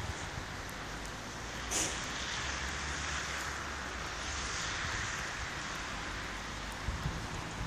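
Steady outdoor background noise: an even hiss over a low rumble, with one short sharp click about two seconds in.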